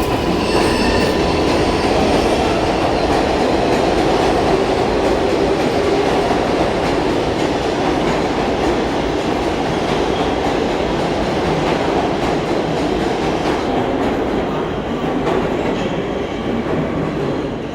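New York subway 7 train rolling through the station: a steady loud rumble of steel wheels on the rails, with a few sharp clacks near the end.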